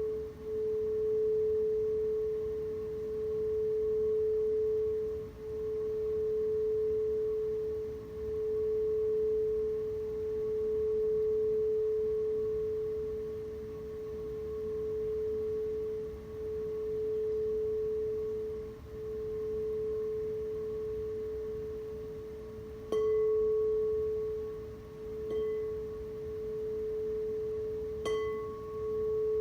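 Singing bowl sustaining one steady low tone, with a fainter higher overtone, that swells and dips every few seconds. It is struck twice in the last seven seconds, and each strike briefly brings out brighter, higher ringing.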